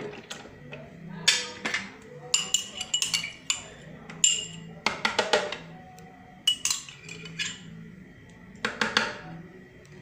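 Kitchen utensils clinking: a spoon and measuring cup knocking and scraping against a blender jar as cream is emptied into it, a dozen or so sharp, irregular clinks, each with a short ring.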